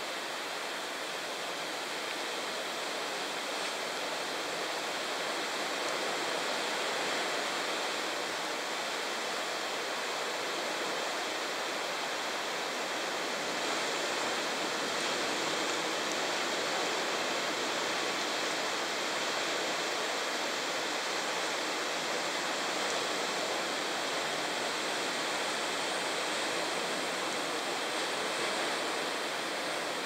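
A steady, even hiss that runs without a break or change in rhythm.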